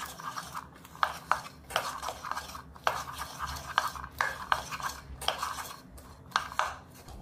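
Wooden spatula stirring sticky caramel-coated popcorn around a non-stick pan, scraping and rustling in repeated strokes about two a second.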